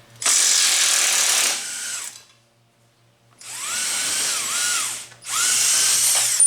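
Handheld electric drill-driver run in three bursts, backing out a bolt. Its motor speed rises and falls during the middle burst.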